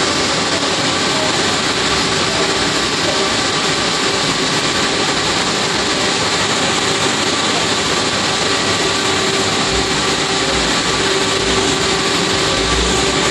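Large dyno cooling fan running steadily, a loud even rush with a faint steady whine in it; a low rumble comes in near the end.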